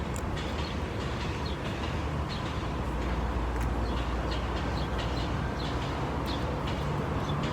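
Steady low vehicle rumble, strengthening about three seconds in, with scattered small clicks and taps over it.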